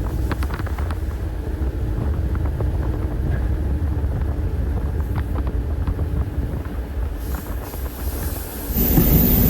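Passenger train running along the track: a steady low rumble with a few sharp clicks in the first seconds. Near the end it turns suddenly louder into a fuller rushing noise.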